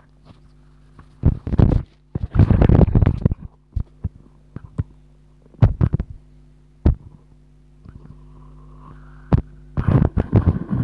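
Muffled rustling and knocks close to the microphone in irregular bursts, over a steady low hum.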